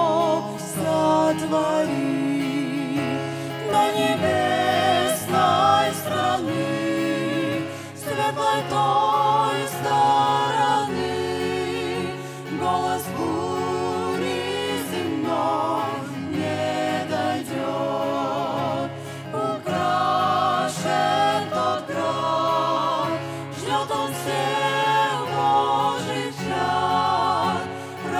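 A small mixed group of women's and men's voices singing a Russian-language gospel hymn in harmony into microphones, with vibrato on held notes, accompanied by acoustic guitar.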